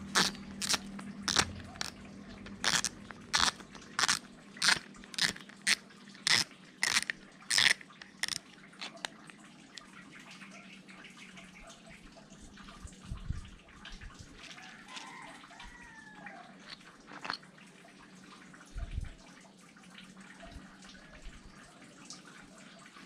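Drag knob of a Shimano Stella SW 8000PG spinning reel being unscrewed to take the spool off, clicking about every two-thirds of a second: about a dozen sharp clicks over the first eight seconds. After that only faint handling of the reel and spool, with a couple of low knocks.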